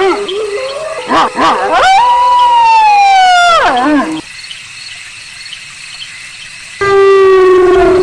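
Wolf howling: a few short yips about a second in, then a long howl that slides slowly down in pitch and drops away about four seconds in. After a quieter stretch of faint hiss, another lower, steady howl begins near the end.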